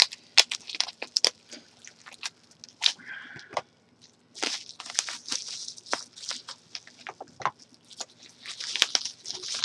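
Plastic packing wrap crinkling and crackling in irregular bursts of rustle and sharp clicks as a heavy padlock is worked free of it by hand.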